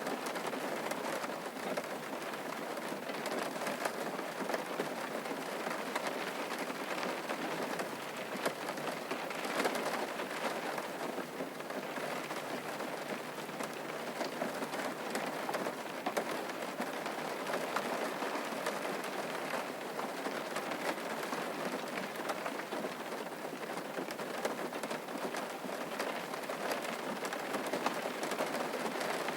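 Steady rain falling, an even hiss sprinkled with many small, sharp drop impacts.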